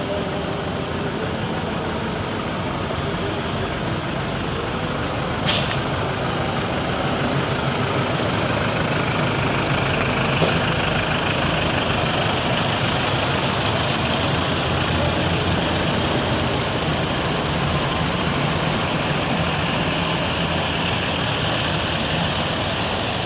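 Farm tractors driving slowly past, their diesel engines running steadily. The engine noise grows louder about six seconds in as a tractor comes close. A short sharp click stands out about five seconds in.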